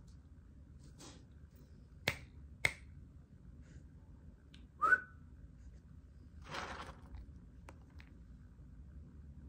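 A person snapping their fingers twice, about half a second apart, to get a dog's attention, followed by a short high squeak and a brief rustle.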